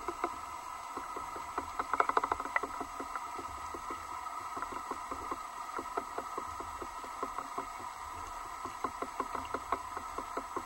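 Underwater recording through a camera housing on a PVC colour-chart rig: a steady faint electronic hum under irregular light clicks and knocks, with a rapid flurry of clicks about two seconds in and another cluster near the end.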